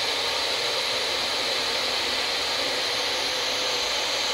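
Steady, even hiss of TV-static white noise, without a break.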